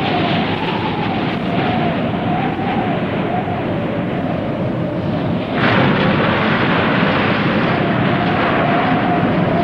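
Film sound effect of a huge explosion and rumbling destruction. It cuts in suddenly as a dense roar with a wavering tone running through it, and grows louder and hissier about halfway through.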